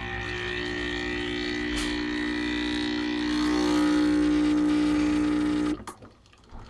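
Breville BES840XL espresso machine's pump running with a steady buzzing hum as it pushes water through finely ground coffee in a single wall filter, growing louder over the first few seconds, then cutting off suddenly near the end, followed by a sharp click.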